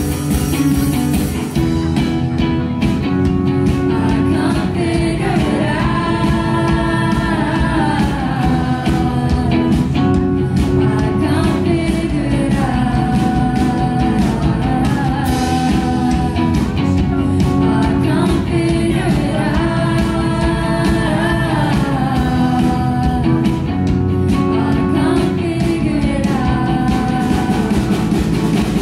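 A woman singing live into a microphone while playing guitar. The sung phrases rise and fall over steady guitar chords and come back every six or seven seconds.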